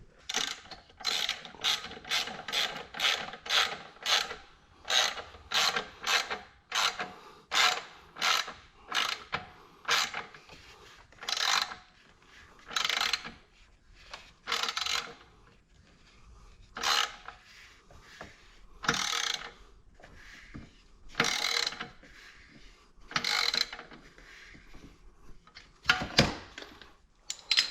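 Hand ratchet wrench clicking in repeated strokes as bolts are tightened, quick at about three strokes a second for the first ten seconds, then slower and more spaced out, a stroke every second or two.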